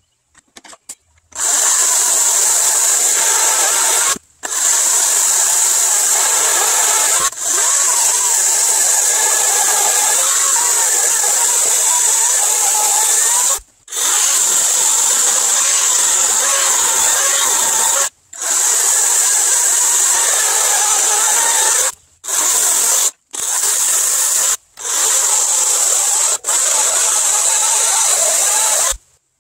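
LiTHELi 40-volt 14-inch cordless chainsaw running and cutting rounds off a log of about 7 inches, a steady high-pitched whine over the noise of the chain in the wood, played back at three times speed. It starts about a second and a half in and cuts out briefly about eight times between cuts before stopping near the end.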